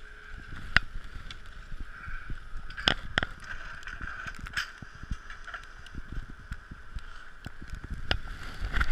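Wind and movement noise on a skier's action-camera microphone while skiing, a steady rumble and hiss broken by scattered sharp clicks and knocks of gear, the loudest about a second in and about three seconds in.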